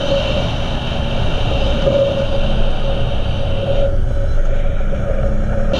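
ATV engine running steadily under way, a constant drone with a steady whine over a low rumble. The brighter hiss above it drops away for the last couple of seconds.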